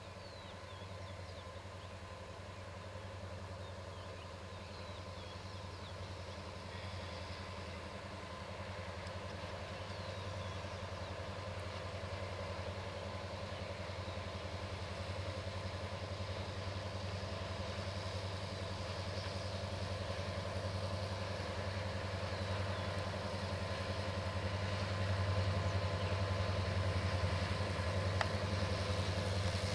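Two diesel locomotives hauling a freight train of oil tank wagons approach. Their engines give a low, steady hum that grows gradually louder throughout.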